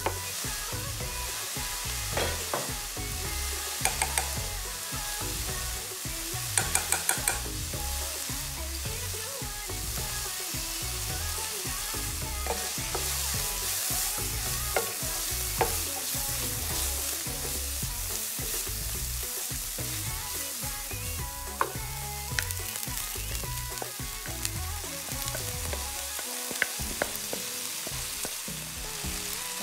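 Diced carrots, peas and onion sizzling in hot oil in a nonstick pan while being stirred with a wooden spatula. Scattered sharp taps sound over the steady sizzle, with a quick run of them about seven seconds in.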